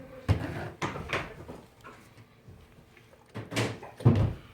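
A few knocks and thuds of objects being handled and set down on a work surface: a sharp knock just after the start, a couple of lighter ones about a second in, and two heavier thuds near the end.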